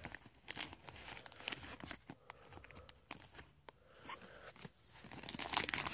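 Foil Pokémon booster pack wrapper crinkling as it is torn open and handled: faint scattered crackles, louder near the end.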